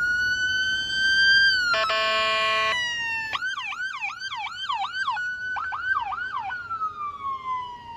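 Police car's electronic siren: a held wail, a short air-horn blast about two seconds in, then two runs of fast yelp, before the wail winds down and falls in pitch near the end.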